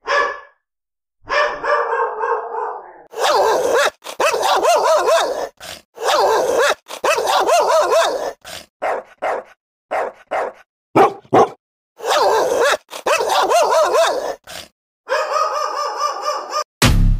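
A dog barking repeatedly in runs of quick barks, about a second long each, with short pauses between them. Music starts at the very end.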